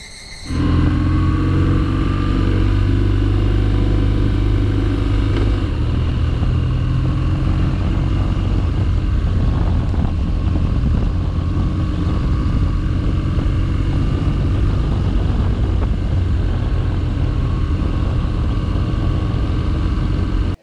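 BMW 1200 cc boxer twin motorcycle engine running under way, heard from on the bike; the engine note cuts in about half a second in and holds nearly steady at an easy pace, with only small changes in pitch.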